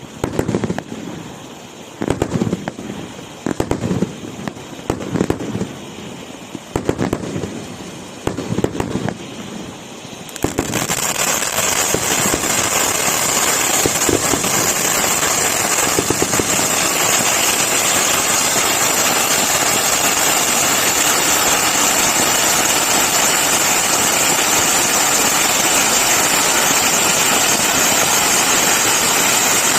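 A 17-inch cone firework fountain burning. It gives irregular crackling pops, roughly one or two a second, then about ten seconds in switches suddenly to a loud, steady hiss of spraying sparks.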